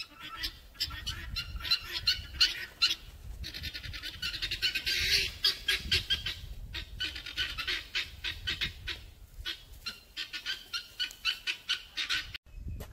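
Chickens clucking, a dense run of short sharp calls, over a low rumble. The sound stops abruptly near the end.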